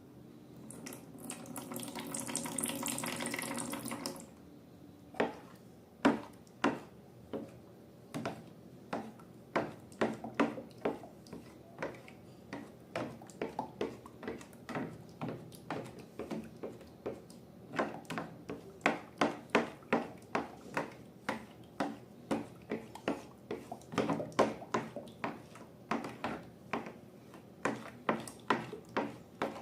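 Liquid pouring into a container for about three seconds, then slime being stirred and squished with a long run of sticky wet clicks and squelches, several a second.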